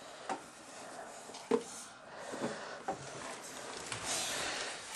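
Faint household handling noises: a few soft knocks, the clearest about a second and a half in, then a brief rustle near the end.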